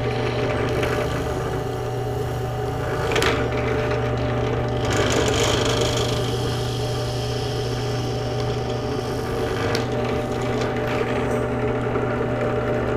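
Benchtop drill press running steadily while a Forstner bit bores a hole through PVC pipe. Rough cutting noise rises over the motor hum about three seconds in and again around five seconds in.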